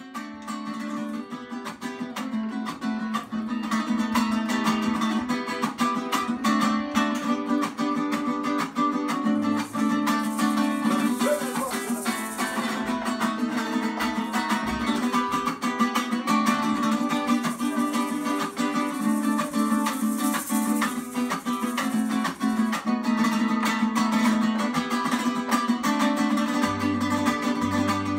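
Live acoustic Latin American folk band playing: strummed and picked acoustic guitars with a small high-pitched plucked string instrument, fading in over the first few seconds. Low bass notes come in near the end.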